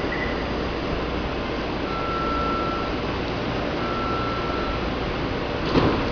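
Taipei Metro C371 train standing at the platform with its ventilation running steadily; the door-closing warning sounds as two long beeps, then the sliding doors shut with a thud near the end.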